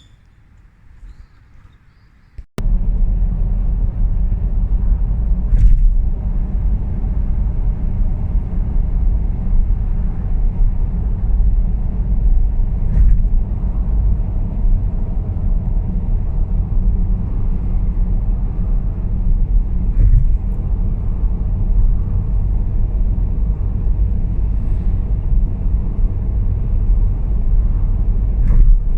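A loud, steady low rumble starts abruptly about two and a half seconds in, with a few faint clicks over it.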